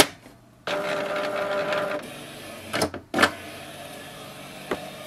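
Canon PIXMA MG2524 inkjet printer: the ink cartridge chamber door clicks shut, then the printer's mechanism starts up, with a louder motor whir for about a second and a half, then a quieter steady whir with a few clicks, the print carriage moving once the new cartridges are in.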